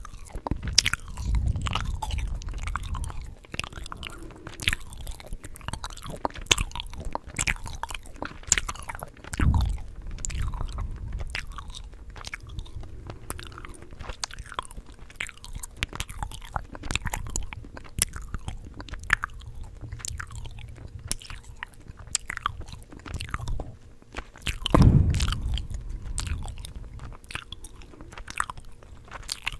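Close-miked chewing gum: a steady run of wet, sticky mouth clicks and smacks. A few deep thumps come through it, the loudest near the end.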